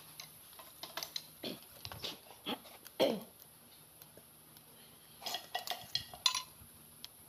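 Hand tools clinking and tapping against the steel rocker arms and valve adjusters of a Komatsu grader's six-cylinder diesel head while the valve clearance is set, in two short bursts of irregular clatter.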